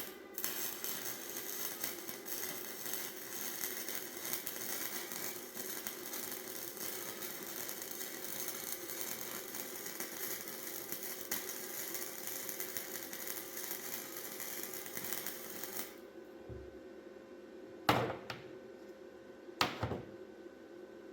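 MIG welder crackling in a steady run of fast sputtering clicks for about fifteen seconds, then stopping. Two sharp metallic knocks follow a couple of seconds later.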